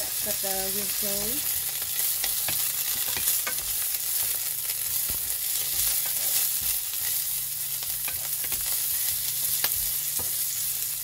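Onion, broccoli and mushrooms sizzling in oil in a nonstick frying pan, stirred with a wooden spatula that knocks and scrapes against the pan every so often.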